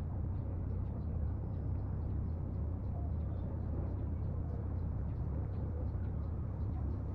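A steady low rumble of outdoor background noise, even throughout, with faint light ticking high above it.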